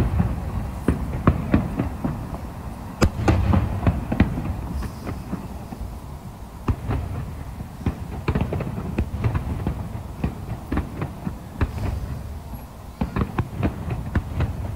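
Aerial fireworks going off in an irregular string of bangs and crackling pops over a low rumble, with a denser cluster of pops near the end.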